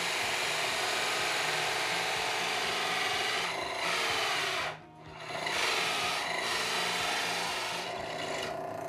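Tomix FB314 benchtop drill press with a 250 W motor driving a hole saw of about 50 mm through a pine board, a steady rasping cut over the motor hum. The cut drops out briefly about halfway and then resumes, going quieter near the end. The saw cuts without stalling at the belt speed set for it.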